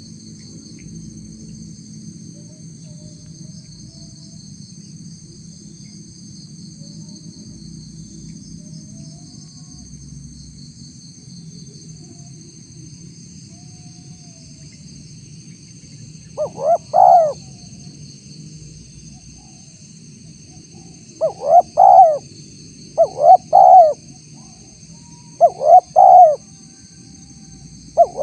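Spotted dove (tekukur) cooing: after about sixteen seconds of steady background noise, four loud phrases of two or three quick coo notes each, a couple of seconds apart, and a fifth beginning at the very end. It is a lure call meant to draw a response from wild spotted doves.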